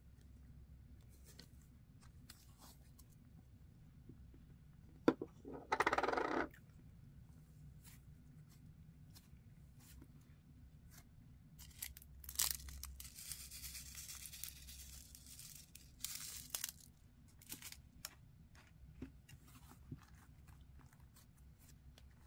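Cloud slime being handled, pulled from its tub, squished and stretched by hand, giving soft tearing and crackling sounds. A sharp click and a short, louder squelch come about five seconds in. A longer spell of fine crackling comes in the middle, followed by scattered small clicks.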